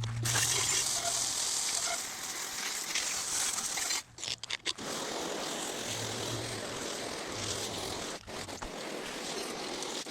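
Water spraying from a hose as the dirt bike frame is washed down: a steady hiss that stops briefly about four seconds in and again near eight seconds.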